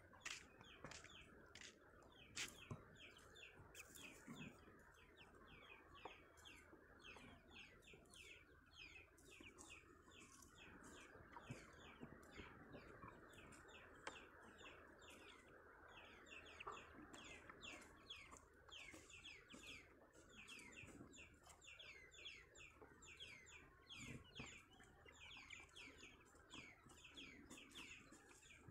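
Faint, continuous bird chirping, several short high chirps a second, over a soft background hiss.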